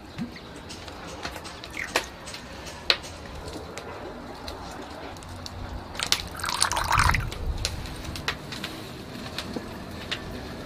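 Liquid poured into a ceramic bowl: olive oil, then lemon juice. Scattered small drips and ticks, then a fuller pour with splashing about six to seven seconds in, the loudest part.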